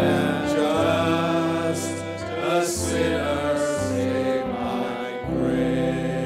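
A small group of men singing a slow Christian song together into microphones, holding long notes that change only a few times.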